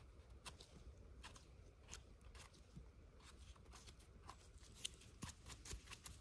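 Faint, irregular crackles and clicks, the loudest a little before the end, from mushrooms being handled and cut among forest-floor litter.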